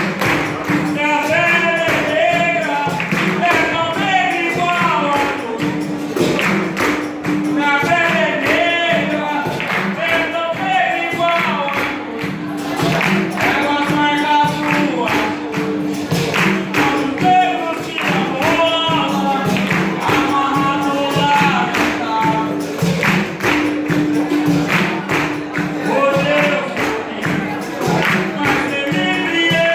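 Capoeira roda music: singing over a steady rhythm of berimbau and pandeiro, with sharp percussive strokes throughout.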